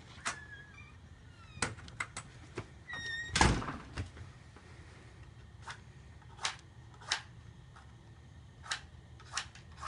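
A front door opening, with a short squeak and a heavy thud about three seconds in, among a few latch clicks. Then about five short, sharp scrapes of matches being struck against a matchbox.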